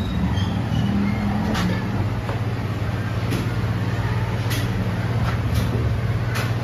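Workshop machinery running with a steady low hum, with a few sharp metallic clicks spread through it.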